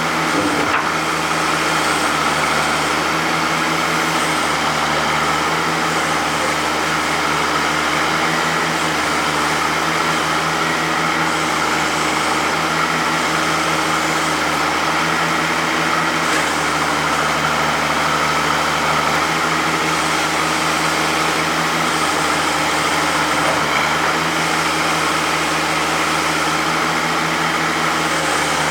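Oliver 88WT backhoe's engine running steadily at an even speed.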